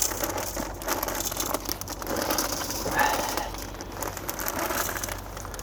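Irregular crackling and rustling from chestnuts roasting over a fire.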